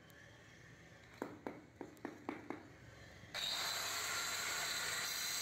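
Light hand-tool tapping on floor tile, about six taps roughly three a second, as small tile pieces are tapped down into the mortar. About three seconds in, a loud steady hiss starts suddenly and is the loudest sound.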